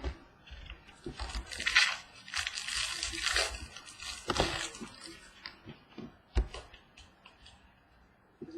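Football trading cards being handled and shuffled in the hand. There is paper-and-card rustling for the first few seconds, then a few light clicks and taps as cards are slid and set down.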